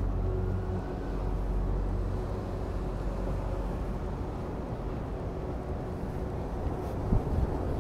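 City street ambience: a steady low traffic rumble, with an engine hum that fades away in the first couple of seconds and a couple of soft knocks near the end.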